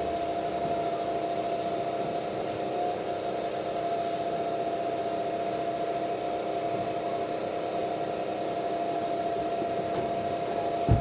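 Steady machine hum: an even noise with a constant mid-pitched tone and a fainter high whine, unchanging throughout. A short thump near the end.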